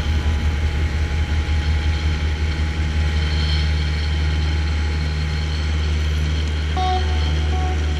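A fishing boat's engine running steadily, heard on board as a deep drone that pulses unevenly for the first few seconds.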